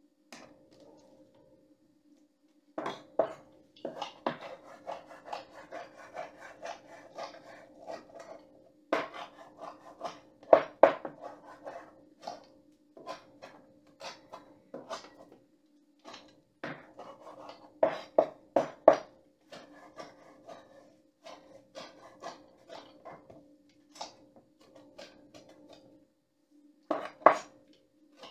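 Kitchen knife chopping and dicing conch meat on a wooden cutting board: runs of quick knocks of the blade on the board with short pauses, starting about three seconds in, a few strikes louder than the rest. A faint steady hum lies underneath.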